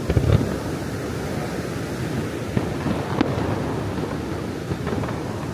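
Aerial fireworks bursting: a loud low bang at the start, then a few smaller bangs around the middle and near the end, over steady background noise.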